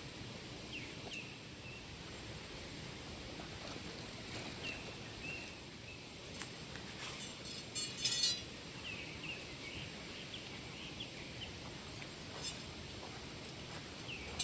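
Small birds chirping in short calls over the steady hush of the woods, with a brief run of sharp clicks and clatter, like camp gear being handled, about six to eight seconds in, the loudest sound here.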